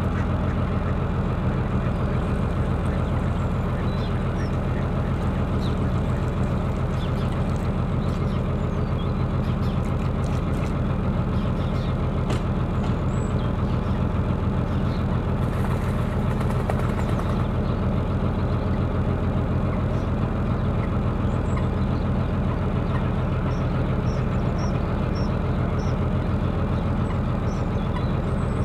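Narrowboat's engine running steadily at an even pitch and level, with a few faint ticks about a third of the way through.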